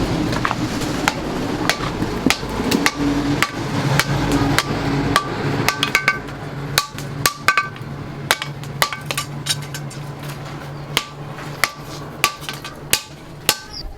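Hand hammer striking steel, irregular at first and then about two blows a second, each blow with a short metallic ring. A steady low hum runs underneath and stops near the end.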